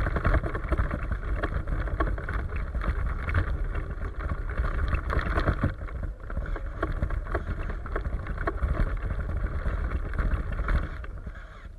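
RC truck driving over snow, with its running motor and tyres heard under heavy wind rumble on the microphone. The sound drops off shortly before the end.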